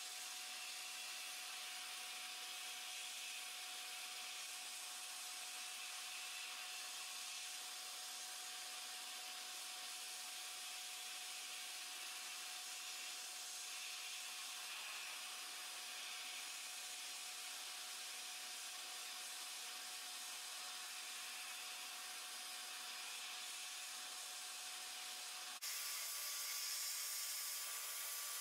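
Sandblasting cabinet's blast gun hissing steadily as abrasive is sprayed onto a pressed-steel toy road grader, stripping its old green paint. About 25 seconds in the hiss jumps to a louder, brighter sound.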